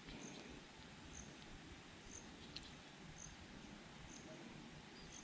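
Near silence: faint outdoor background with a faint high-pitched chirp repeating about once a second.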